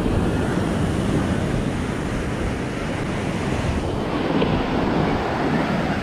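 Ocean surf breaking and washing up the sand at the shoreline, a steady rushing wash, with wind buffeting the microphone.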